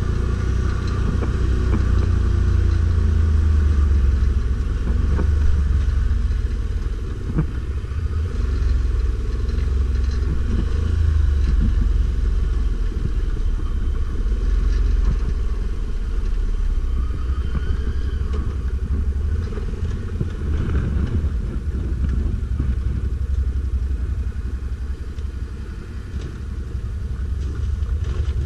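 Stels Guepard 850 ATV engine running steadily while riding off-road, a continuous low rumble with a few sharp knocks.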